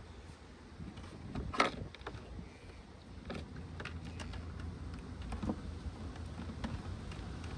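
A low, steady rumble of wind on the microphone, with a few scattered light clicks and knocks from handling work on the boat, the sharpest about one and a half seconds in.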